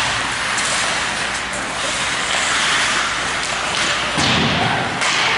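Hockey skate blades scraping and carving on the rink ice during play, a steady hiss with sharper scrapes near the end, and a dull thud about four seconds in.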